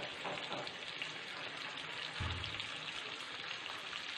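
Shredded cabbage and green capsicum sizzling steadily in hot oil in a kadhai.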